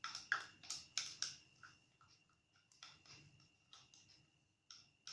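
Light clicks and taps of small plastic toy kitchen pieces being handled, several sharp knocks in the first second or so, then fainter, sparser ticks. A faint steady high-pitched tone runs underneath.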